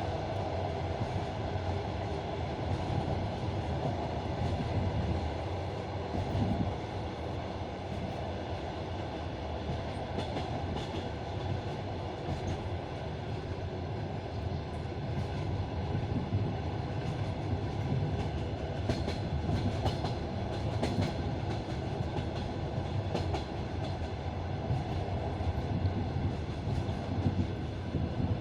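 Passenger train carriage rolling along the track, heard from on board: a steady rumble with the clatter of wheels over rail joints, and sharper clacks coming more often in the second half.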